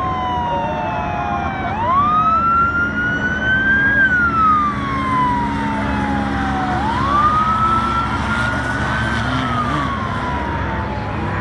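Law-enforcement vehicle's siren wailing. It shoots up in pitch about two seconds in and again near seven seconds, climbs a little further, then glides slowly down. Vehicle engines run low underneath.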